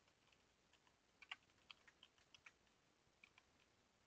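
Faint typing on a computer keyboard: a handful of single key clicks spaced unevenly, most of them in the middle of the stretch.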